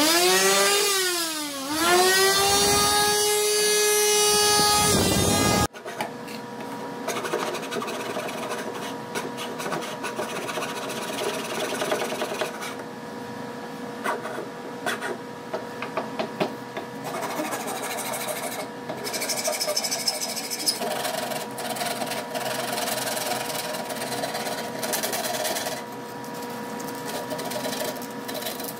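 Electric sander running against a cedar edge, its motor whine dropping in pitch and climbing back before cutting off about six seconds in. Then a hand file rasps along the cut cedar edges in repeated uneven strokes over a faint steady hum.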